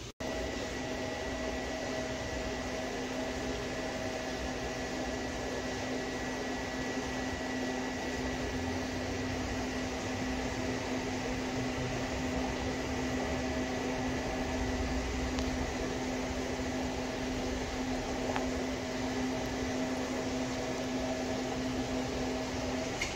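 Steady hum and hiss of aquarium equipment, with a few constant whining tones over an even background noise.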